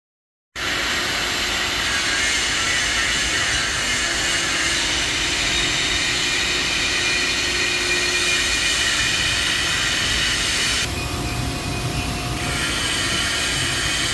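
Lifting machinery running steadily with a high whine and a loud low rumble. About eleven seconds in the high whine drops out for a second and a half, then comes back.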